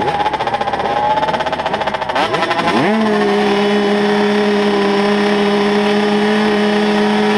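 Several 85cc two-stroke motocross bike engines revving on the start line, their pitches rising and falling. About three seconds in, the nearest bike's engine sweeps up and is held at a steady high pitch, throttle held open ready for the start.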